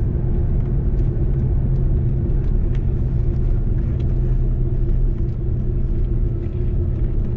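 Steady low rumble and hum inside the cabin of an Airbus A330-300 rolling on the ground after landing, with faint scattered clicks and rattles.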